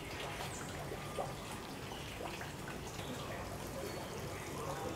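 Faint, steady trickling water amid quiet outdoor ambience.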